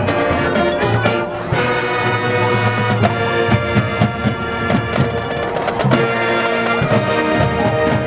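High school marching band playing: brass section holding sustained chords over drum-line percussion hits.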